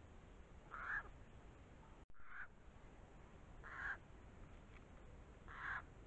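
Eurasian jay giving harsh, rasping screech calls, four of them spaced about one and a half to two seconds apart.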